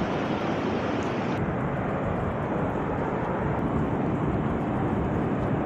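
Steady rush of water from a mountain stream and waterfall, an even hiss with no distinct events, a little duller from about a second and a half in.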